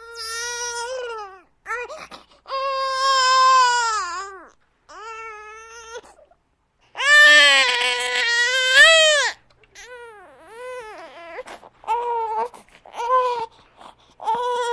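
Infant crying in a series of drawn-out wails with short breaths between them. The longest and loudest cry comes about halfway through, followed by shorter, quicker cries.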